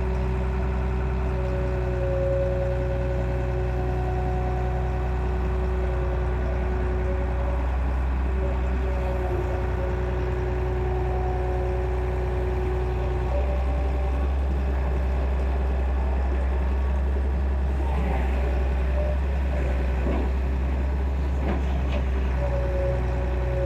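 Excavator's diesel engine running steadily, with a steady whining tone over it. The engine note changes about halfway through, and a few knocks come near the end.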